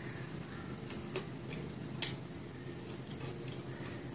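A person chewing a mouthful of food, with four short, sharp mouth smacks in the first two seconds, the loudest about two seconds in.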